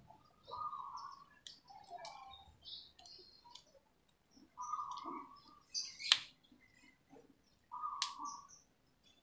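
A few sharp clicks from hand pliers stripping and crimping wires, the loudest about six seconds in and another about eight seconds in, with birds chirping on and off.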